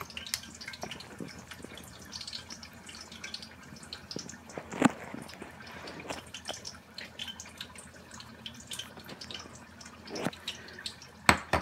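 Chopsticks stirring moist, ponzu-dressed boiled whitebait and plum-shiso paste in a ceramic bowl: a run of small wet clicks and squishes, with a few sharper taps of the chopsticks against the bowl, one about five seconds in and two near the end.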